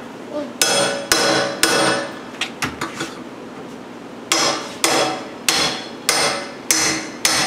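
Repeated hard blows with a metallic ring, busting down the top of an old wooden whiskey barrel: three strikes about half a second apart, a pause with a few light taps, then six more in a steady run of about two a second.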